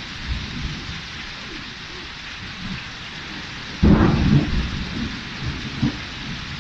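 Torrential rain hissing steadily. A sudden loud low rumble breaks in just before four seconds in and dies away over a second or so.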